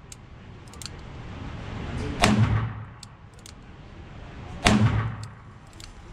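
Two shots from a Smith & Wesson Model 19 Carry Comp .357 Magnum revolver, fired single action, about two and a half seconds apart. Each shot rings briefly in the small range booth, and a few light clicks fall between them.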